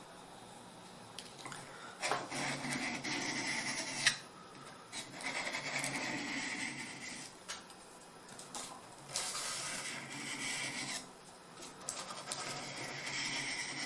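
Swedish carving knife's blade rubbed along a sharpening stone in four slow strokes of about two seconds each, honing its scandi-ground edge, with a sharp tap about four seconds in.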